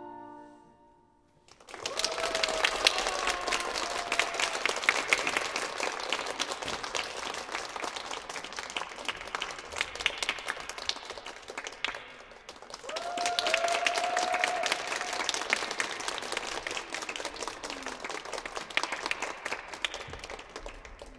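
The last held chord of a small orchestra with piano dies away, then an audience breaks into applause, which eases off briefly about halfway through and swells again.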